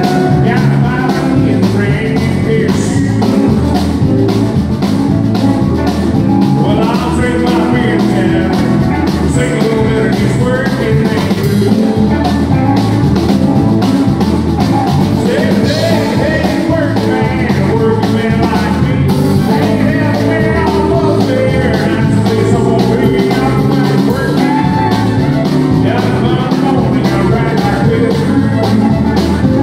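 Live band playing an upbeat rock-and-roll style number with a man singing, electric guitar and keyboard over a steady beat.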